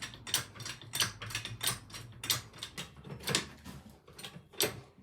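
A jack being worked to raise the front of a quad bike: a series of irregular metallic clicks and clunks, about one to two a second.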